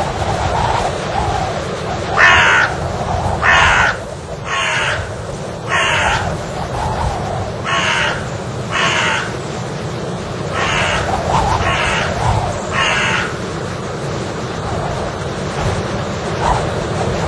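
Crows cawing: about nine caws, roughly a second apart, ending a few seconds before the close, over a steady low rushing noise.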